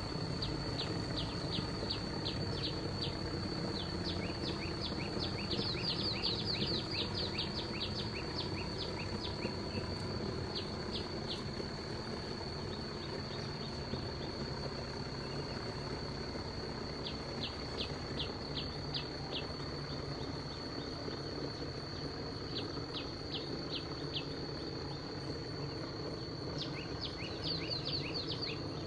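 A steady high insect drone with several bouts of bird song, each a quick run of short descending whistled notes, over a steady low rumble.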